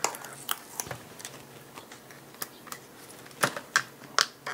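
Scattered sharp clicks and snaps as the glued card-stock and plastic layers of a video greeting card are pried apart by hand, with the loudest few coming in quick succession near the end.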